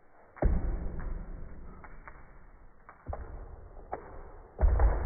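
Deep, slowed-down thuds and rumbling from a Boston terrier running and playing fetch on a tiled floor, pitched down by slow-motion playback. Loud thuds about half a second in, about three seconds in and the loudest near the end, with fainter knocks between.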